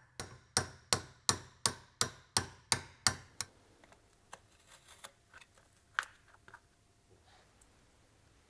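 A hammer striking metal in quick, even taps, about three a second, ringing slightly, while the gear pump's spring pin is being knocked out. The taps stop about three and a half seconds in, and light clicks of metal parts being handled follow.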